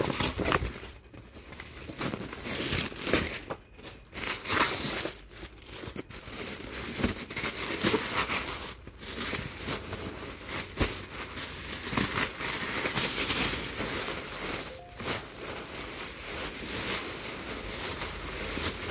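Thin plastic wrapping and a paper mailer crinkling and rustling as they are torn open and pulled off, uneven, with many short crackles.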